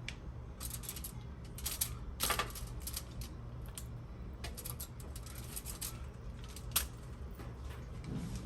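Irregular sharp clicks and crackles, some in quick clusters, over a steady low hum.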